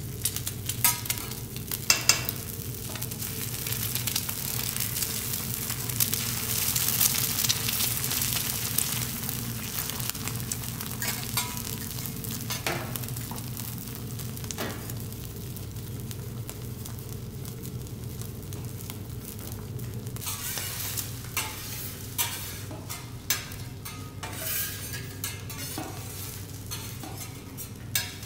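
Food sizzling on a teppanyaki steel griddle, with frequent clicks and taps of metal utensils against the plate and a steady low hum underneath.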